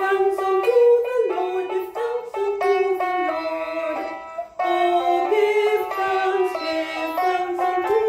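A woman singing a worship song, one held note after another in a stepwise melody.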